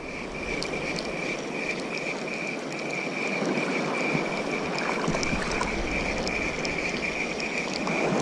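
Steady rushing surf noise that slowly swells, with a thin, high, pulsing buzz running through it.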